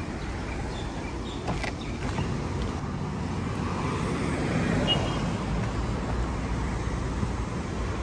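Steady road traffic on a city street, swelling briefly about halfway through as a vehicle goes by.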